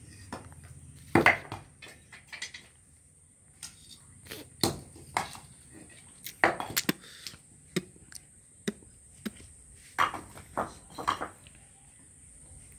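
Loose fired-clay bricks clacking and knocking against each other as they are lifted off a pile and set down by hand, in irregular knocks; the loudest come about a second in and again around six and a half and ten seconds in.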